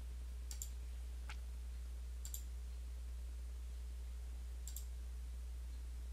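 Computer mouse clicking three times, a couple of seconds apart, each click a quick double tick, over a steady low hum.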